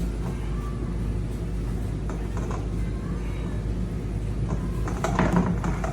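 A floor scrubber's pad driver and drive pad being handled and twisted against each other, giving a few light knocks and a louder clatter near the end, over a steady low hum.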